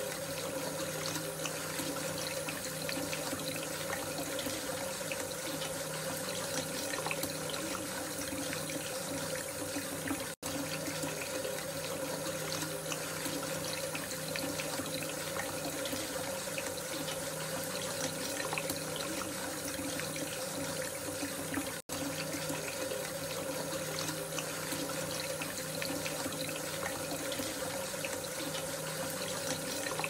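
A heavy stream of running water pouring into standing water, a steady churning splash. It drops out for an instant twice.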